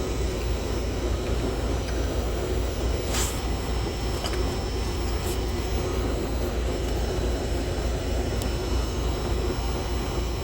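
Steady low drone of an idling diesel engine, with a few faint clicks and one brief hiss about three seconds in.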